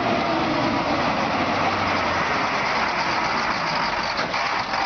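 Heavy dump truck's engine running steadily.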